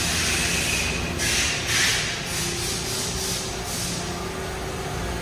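Running machine-shop machinery: a steady low hum, with a faint steady tone joining about two and a half seconds in. Over it come bursts of hissing that speed up to about four a second, then die away about four seconds in.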